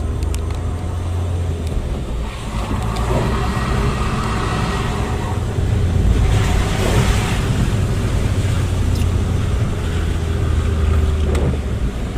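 Car interior road noise while driving: a steady low engine and tyre rumble, with a louder hiss swelling briefly about six to seven seconds in.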